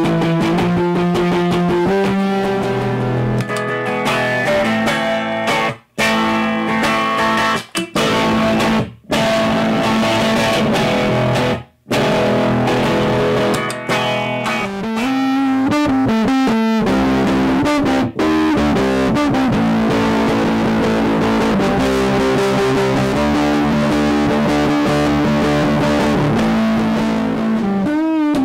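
Electric guitar played through an East Coast Pedals Killer Wave overdrive pedal, giving an overdriven tone: changing riffs and chords, with a few brief gaps in the first twelve seconds.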